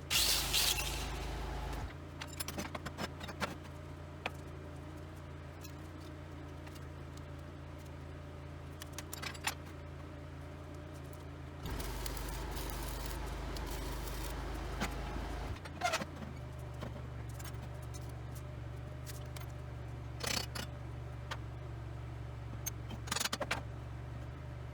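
Intermittent light metallic clinks and rattles over a steady low mechanical hum that changes abruptly in strength a few times.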